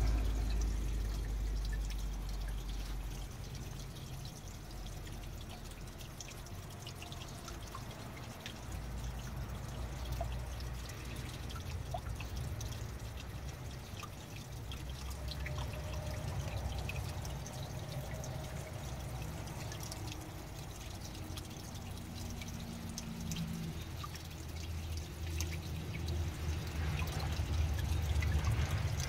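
Small water fountain trickling and dripping, over a steady low rumble.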